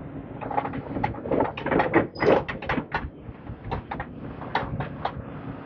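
Demolition rubble and debris clattering as a machine moves it, a quick irregular run of knocks and scrapes over a faint steady engine hum.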